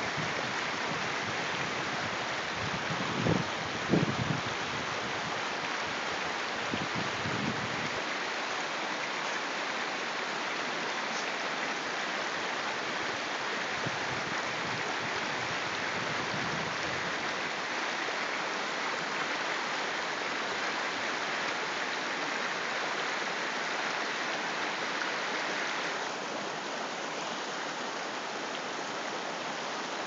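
Mountain stream rushing steadily over rocks through shallow riffles, with a couple of brief low thumps about three to four seconds in; the rush gets a little quieter in the last few seconds.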